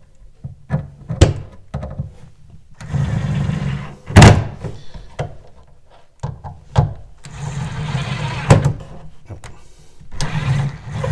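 Cordless drill-driver running in three short bursts of about a second each, driving screws into a pine bookcase frame. Sharp knocks of wood and tool come between the bursts; the loudest is about four seconds in.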